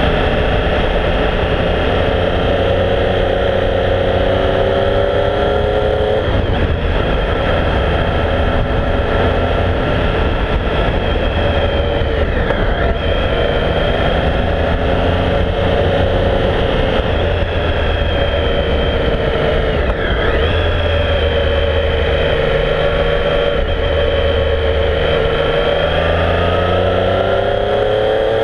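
Triumph Speed Triple's three-cylinder engine running under way, its pitch climbing under acceleration and falling back several times, about six seconds in, around twelve and twenty seconds, and rising again near the end. A steady rush of wind and road noise runs underneath.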